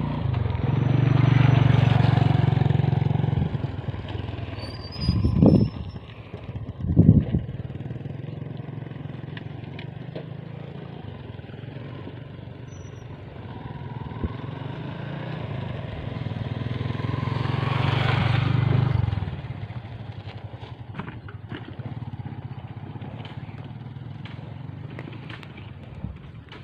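A motor vehicle's engine passes twice, swelling and fading, once at the start and again about two-thirds of the way through. Two short, loud thumps come between the passes.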